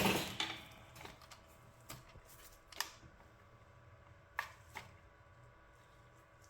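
Hard knock right at the start, then scattered light clicks and taps as equipment is moved and set up on a repair bench, likely the microscope being brought into place over the controller board.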